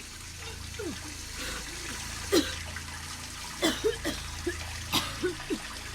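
A woman coughing in a series of short, separate coughs, several in quick succession from about three and a half seconds in. A steady low hum and hiss run underneath.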